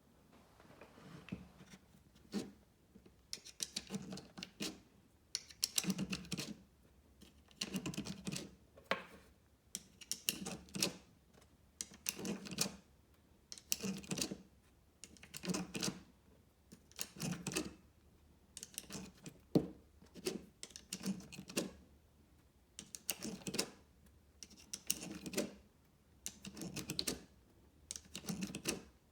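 Rimfire .22LR cartridges being pushed one at a time into an HK MP5 .22LR single-stack magazine through a plastic speedloader: a short cluster of clicks and clatter about every two seconds.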